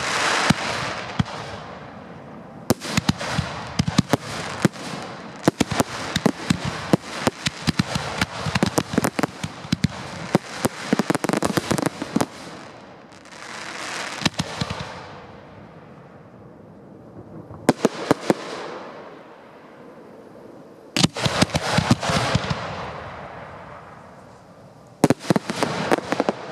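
Fireworks display heard at close range from the firing site: volleys of rapid, sharp bangs and crackling shells, coming in bursts with lulls of a few seconds between them and a swell of hiss about thirteen seconds in.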